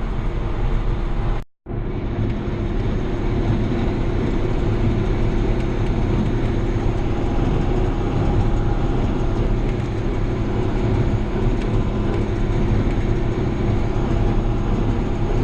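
John Deere 7000-series tractor running at PTO speed and driving a hay baler: a steady engine and machinery drone. It cuts out for a moment about a second and a half in.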